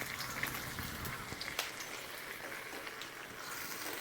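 Masala-coated chicken pieces frying gently in a pan over a low flame: a soft, steady sizzle with scattered small pops and clicks.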